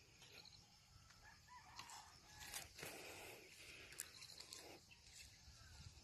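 Rooster crowing faintly, with a few light clicks.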